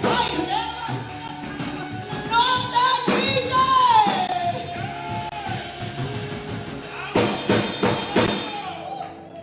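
Live church worship music: a singing voice with long held, gliding notes over instruments and percussion hits, dropping away sharply near the end.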